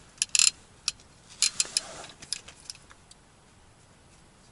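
Small ice-fishing rod and tackle being handled: a string of sharp, light metallic clicks and jingles, thickest in the first two seconds, then thinning to a few faint ticks.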